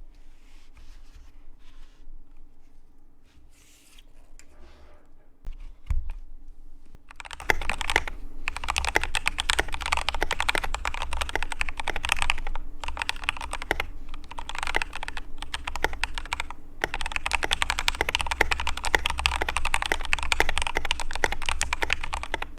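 Typing on a Boyi WK82 keyboard. After a few quiet seconds with a thump about six seconds in, fast continuous key clatter starts at about seven and a half seconds, with heavier strokes landing about twice a second.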